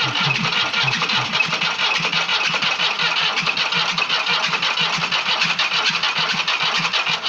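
A Paris-Rhône starter motor cranking a three-cylinder Perkins diesel, its intake flame heater lit for a cold start. The cranking runs steady with a fast low pulsing and cuts off suddenly near the end.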